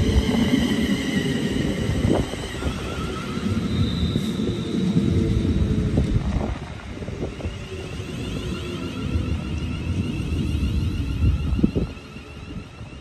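Class 350 Desiro electric multiple unit running past: a low rumble of wheels on rail under the high whine of its traction motors, with a few knocks. The sound falls away sharply near the end as the train draws off.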